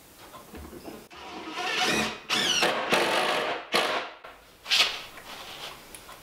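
Items being slid and shuffled about on a wooden cabinet shelf. A scraping rustle lasts about three seconds, with a brief wavering squeak in the middle, and a short scrape follows near the end.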